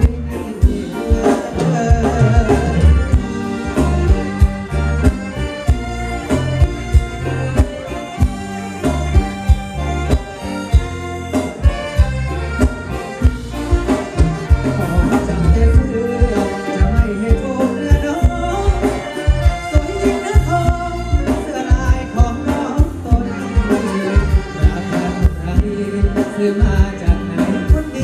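Live band playing Thai ramwong dance music with a steady beat: electric guitar, bass and drums, with a sung vocal.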